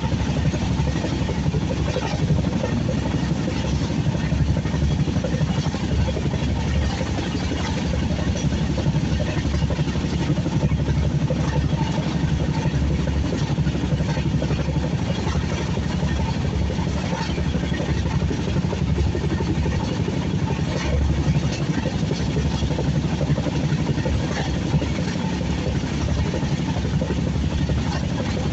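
Passenger train running, a steady low rumble of wheels on the track.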